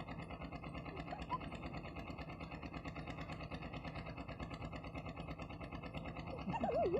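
A steady, rapidly pulsing engine-like hum, with a few short squeaky glides about a second in and again near the end.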